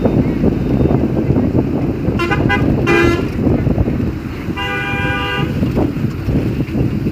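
Vehicle horns honking over steady low road and wind noise: a few short toots about two seconds in, then one longer honk of about a second near the middle.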